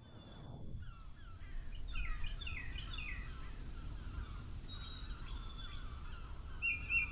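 Birds chirping and calling over a low, steady rumble of background noise; near the end one bird repeats a quick phrase about five times.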